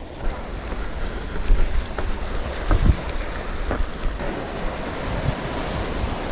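Ocean surf washing on a beach, with wind buffeting the microphone in low rumbling gusts, strongest about one and a half and three seconds in.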